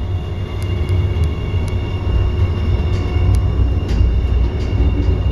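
Cable-hauled funicular car rolling along its track, heard from inside the car: a steady low rumble with a faint high whine and a few light clicks.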